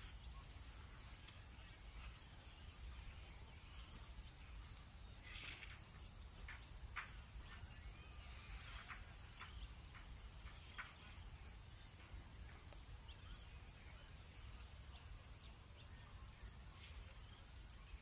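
Insects droning steadily, high-pitched, with a cricket's short chirps of about three quick pulses repeating every couple of seconds. A few faint short ticks come in the middle.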